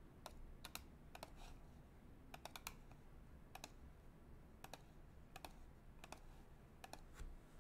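Faint computer keyboard clicks: single keys and quick runs of two to four keystrokes, pressed at irregular intervals.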